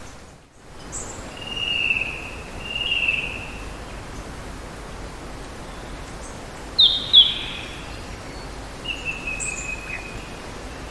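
Birds whistling and chirping over a steady rush of running water: two drawn-out whistles in the first few seconds, a pair of sharp down-slurred notes around the middle, and a falling whistle near the end.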